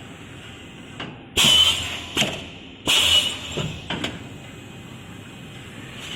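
Flatbread production-line machinery running, with a few loud, sudden bursts of clatter and hiss in the first half, then a steadier machine hum.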